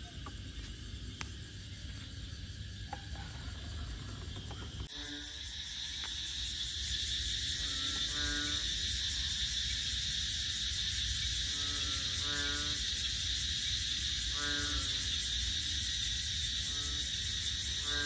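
A wetland frog chorus at dusk: a steady high-pitched chorus comes in about five seconds in, and over it a frog gives short croaking calls every second or two.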